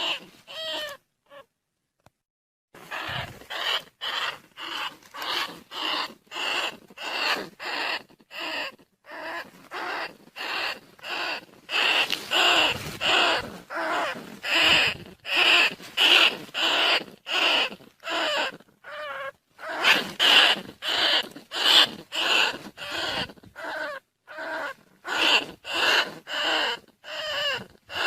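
Recorded lure call of field rats: short squeaking calls repeated about twice a second, with a brief pause about a second in. It is played to draw rice-field rats and bandicoot rats in.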